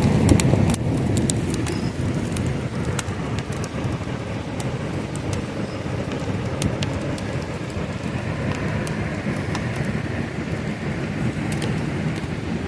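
Steady rushing of river rapids, with scattered light clicks over it.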